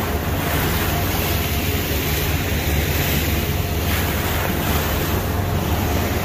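A boat's engine running steadily under way, with water rushing past the hull and wind buffeting the microphone.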